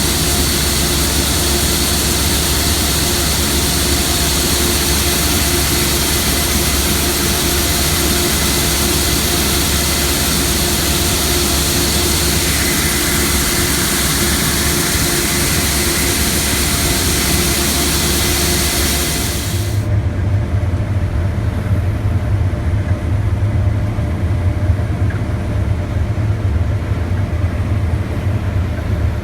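Case 8230 combine running steadily, a broad mechanical hiss with a few steady tones. About two-thirds of the way through, the sound changes abruptly to a deep low rumble with the higher hiss gone.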